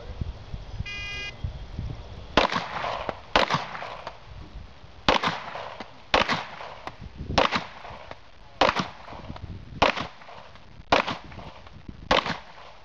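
A shot timer's short start beep, then a Glock pistol firing nine shots at a slow, even pace, about one a second.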